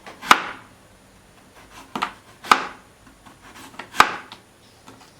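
Kitchen knife cutting a potato into strips on a cutting board: four sharp, irregularly spaced knocks of the blade meeting the board, with a few lighter taps between.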